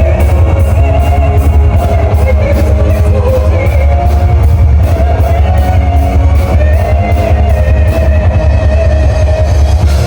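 Loud band music with a heavy bass and a steady beat, with a wavering melodic line above it.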